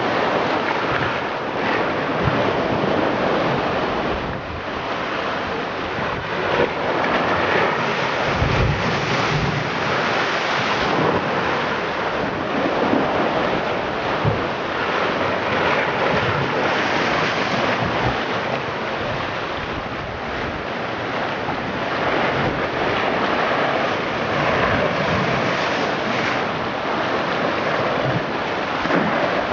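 Sea surf surging and churning into a narrow rocky inlet: a continuous rushing wash of water, with a few brief low thumps.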